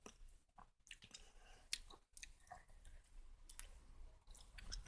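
Faint chewing of a chewy chocolate sticky rice-cake pie, with a few soft, sticky mouth clicks now and then.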